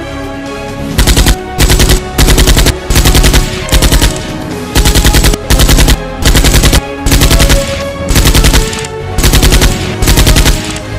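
Automatic gunfire in short, rapid bursts, about fifteen of them starting about a second in, over background music.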